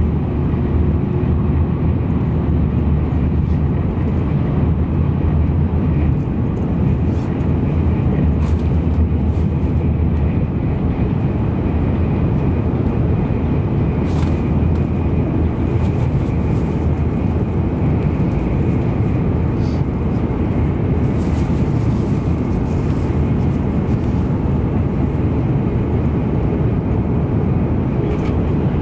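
Cabin noise inside an N700 series Shinkansen at high speed: a steady low rumble from the running gear and the air rushing past, with faint light clicks now and then.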